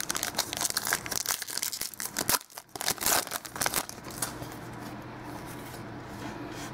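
Trading cards being handled and shuffled right by the microphone: rustling and crinkling with many small clicks. It is busiest in the first few seconds and quieter after that.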